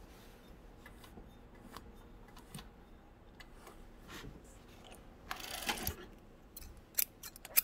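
Denim being pulled out from under a sewing machine's presser foot, with a short rustle of fabric and thread drawing off a little after five seconds in, then a few sharp clicks near the end. Faint scattered ticks come before it.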